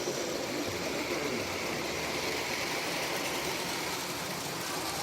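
Model train running on its track, a steady mechanical running noise.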